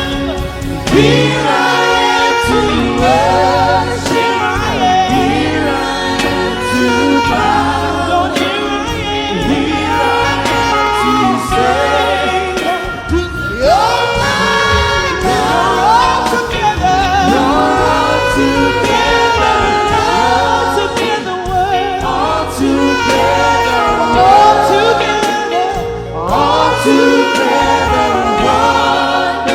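Church worship music: a singer leading the song with the congregation singing along over band accompaniment, held chords and a low bass throughout.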